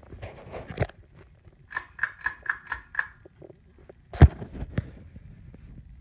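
Hunter Stratford ceiling fan running with a low steady hum. Over it comes a run of six short, evenly spaced pitched pulses, about four a second, starting a second and a half in. A sharp thump a little after four seconds in is the loudest sound.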